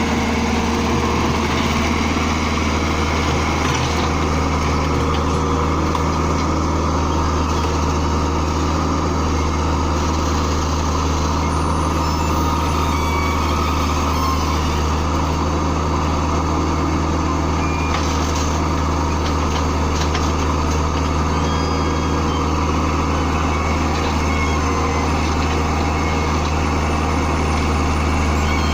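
Komatsu PC60 hydraulic excavator's diesel engine running steadily at working speed, with a few faint knocks.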